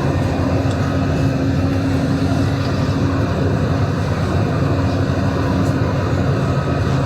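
Tractor engine running steadily under load while pulling a baler at work, a constant low drone with no change in pace.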